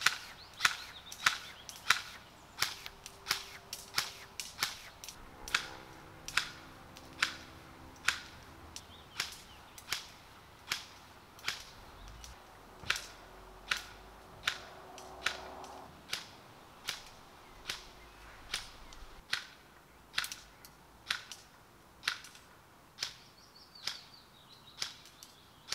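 ICS CXP-MARS.II Carbine S3 electric airsoft rifle fired in single shots, evenly, about three shots every two seconds, heard from 30 to 60 metres away. The shots are fired partly with the Blaster amplifier muzzle device fitted, which is meant to make the shot louder, and partly without it.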